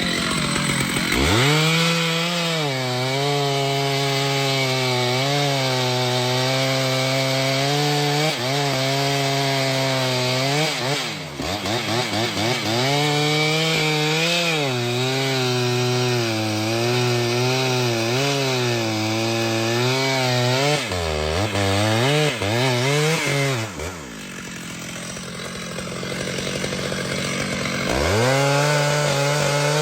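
Two-stroke chainsaw cutting through a tree, its engine pitch sagging and recovering again and again as the chain bites and frees. It drops to a lower, quieter running for a few seconds near the end, then revs back up.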